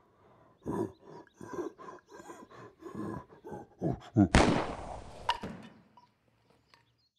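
Grunting and groaning of a scuffle, then a single gunshot a little over four seconds in, a sharp crack that dies away over about a second.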